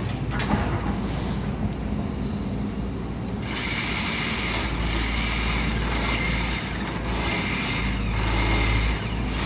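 Heavy diesel construction machinery running steadily with a low engine rumble, joined about three and a half seconds in by a higher whine and clatter.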